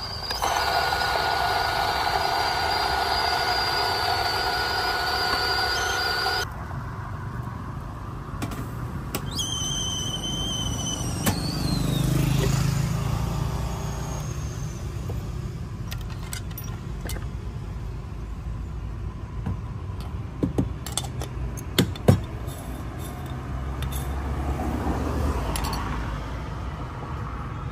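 Electric coffee grinder motor running steadily for about six seconds while grinding espresso beans, then stopping suddenly. Later come a few sharp knocks and taps, with a low traffic rumble throughout.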